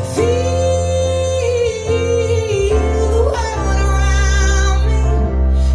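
Recorded music played back through a pair of hi-fi floor-standing loudspeakers: a singer's long held notes over a deep, steady bass line, with a new note rising in about halfway through.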